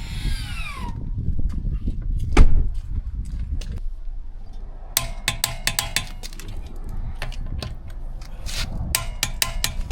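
Metal wrench and socket clinking and clicking while lug nuts are handled during wheel refitting. A motor whine winds down in pitch at the start, there is a sharp knock about two seconds in, and a run of ringing metallic clinks comes from about halfway.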